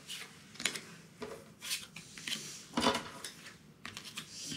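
Match Attax trading cards being slid, gathered and laid down on a wooden tabletop: short, irregular brushes and taps of card on wood, about every half second.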